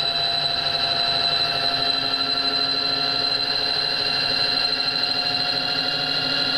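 Power feed on an RF-31 mill/drill running steadily, driving the X-axis table along: a continuous motor whine with a high, unchanging tone.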